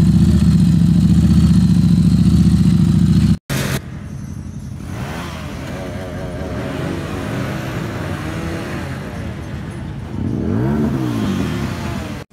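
A Harley-Davidson motorcycle's V-twin engine running loud and steady, cut off abruptly. Then a group of motorcycles idling together, with engines revved up and back down twice.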